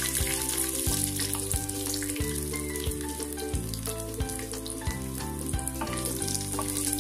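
Roasted gram, urad dal and garlic cloves sizzling steadily in hot coconut oil in a nonstick frying pan, stirred now and then with a wooden spatula, while the garlic fries until crisp. Background music with sustained notes plays along.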